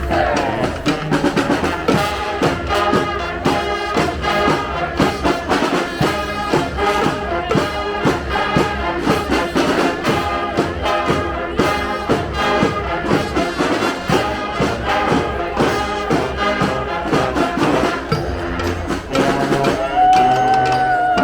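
Street brass band playing, horns in quick rhythmic phrases over drums, with a long held horn note near the end.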